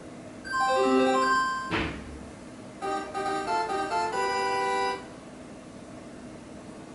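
Short electronic jingle of clean keyboard-like notes: a quick run of notes, a single thud about two seconds in, then a second phrase of short notes ending on a held chord that cuts off suddenly, leaving a steady hiss.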